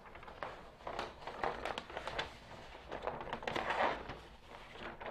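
A large paper flip-chart sheet rustling and crinkling as it is lifted and flipped over the top of the easel, loudest a little before the end.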